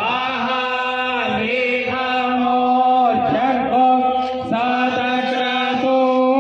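Men chanting Sanskrit mantras for a Ganesh fire ritual (yagya), led over a microphone. The chanting is held mostly on one steady pitch and shifts at each syllable, without a pause.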